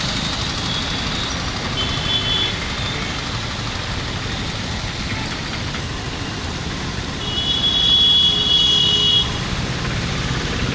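Street traffic on a flooded road: a steady wash of motorbike and auto-rickshaw engines. A vehicle horn sounds briefly about two seconds in, and a longer, louder horn blast comes about two-thirds of the way through.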